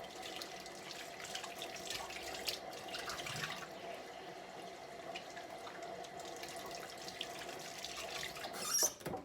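Kitchen faucet running steadily into the sink as hands are washed under it, then turned off near the end.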